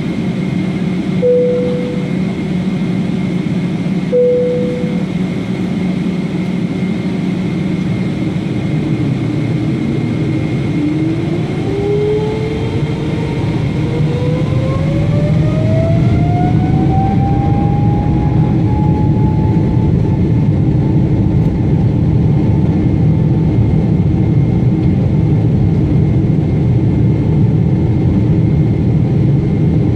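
Boeing 777-300ER's GE90-115B engines heard from inside the cabin, spooling up to takeoff thrust. A steady low hum carries a whine that starts rising in pitch about ten seconds in and levels off, while the engine noise grows louder. Two short chime tones sound in the first few seconds.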